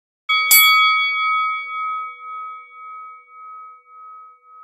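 A single struck bell-like chime about half a second in, ringing on and slowly fading, its tone pulsing in a steady waver as it dies away.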